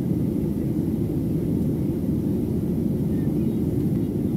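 Steady low roar inside the cabin of a Boeing 737-700 in flight: the noise of its CFM56-7B engines and the air rushing past the fuselage, with no change in pitch or level.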